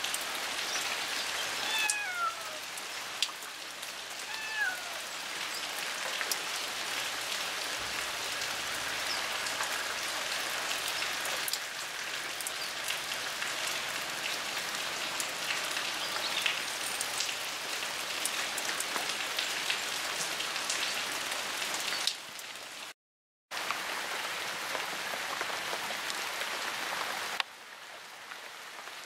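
Steady rain falling on garden leaves and flowers: an even hiss with many small drop ticks. A few short falling cries come through about two and four seconds in. The sound cuts out for a moment near the end, then the rain carries on more quietly.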